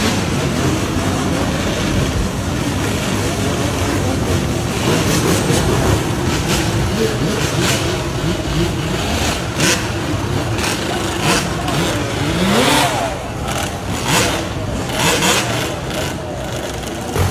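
Dirt bike and ATV engines running and revving on a street, with one engine revving up sharply about two-thirds of the way through.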